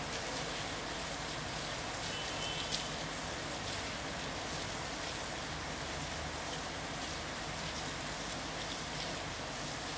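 Steady rain falling on terracotta tile roofs: an even hiss with scattered drop ticks, and one sharper tick about three seconds in.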